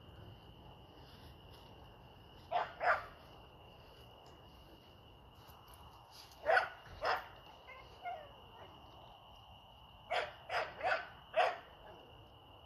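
Pit bull barking in short barks: a pair, another pair, a single softer one, then four quick barks near the end.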